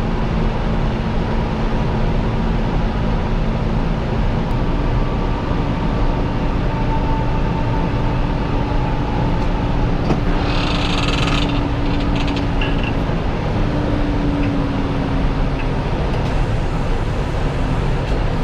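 Tractor engine running steadily under load while pulling a plough, its note shifting slightly a few times, with a short hiss about ten seconds in.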